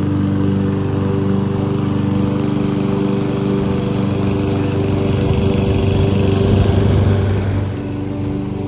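Gas-powered walk-behind lawn mower engine running steadily, getting a little quieter near the end.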